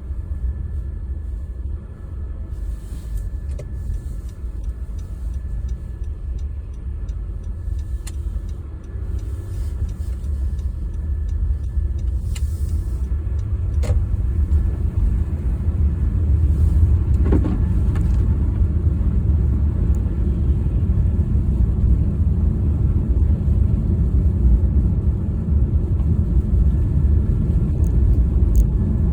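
Car driving: a steady low road-and-engine rumble heard from inside the cabin, growing gradually louder, with a few faint clicks.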